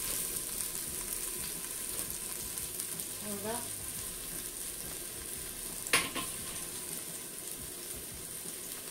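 Diced red onions frying in oil in a stainless steel pot, a steady high sizzle. A single sharp knock about six seconds in.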